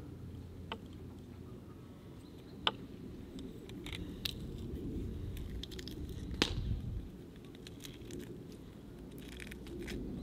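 Metal hand-held garlic press crushing garlic cloves: squishing and crunching, with a few sharp clicks, the loudest about six seconds in.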